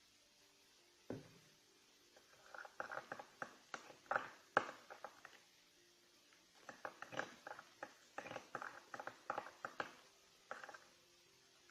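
Fluffy slime (glue, shaving foam and borax activator) being stirred as it activates: a knock about a second in, then two runs of quick, sticky squelching clicks separated by a short pause.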